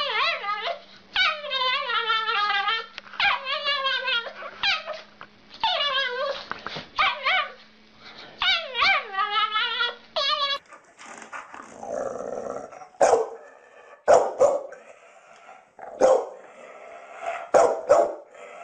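A small dog giving a run of long, wavering, pitched yowls, each bending up and down in pitch. About ten and a half seconds in it gives way to another dog's short, sharp barks, roughly one a second.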